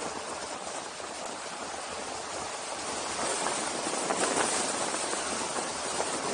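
Wind rushing over the camera's microphone during a fast descent: a steady rushing noise that grows a little louder about three seconds in.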